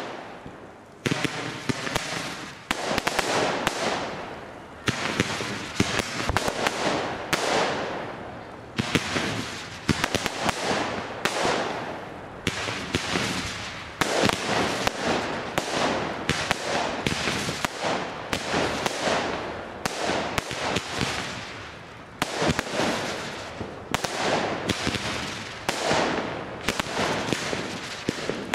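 Fireworks display firing continuously: a rapid, unbroken run of bangs and crackles, each fading with a short echo, starting in earnest about a second in.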